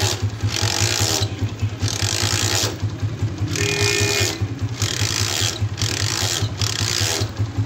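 Honda CG 125's single-cylinder four-stroke engine idling with a steady rapid beat. Over it come about six separate bursts of scraping, each up to a second long, from a spanner being worked on the kick-start lever's bolt.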